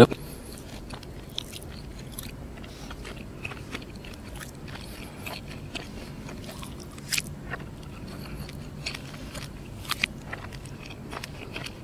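Close-miked chewing of breaded fried chicken: soft, scattered crunches and wet mouth clicks, with a couple of sharper clicks about seven and ten seconds in.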